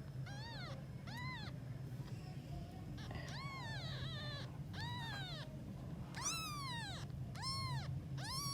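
Day-old newborn kittens mewing: about eight thin, high cries, each rising then falling in pitch, at uneven intervals. They are calling from hunger while the mother cat is away.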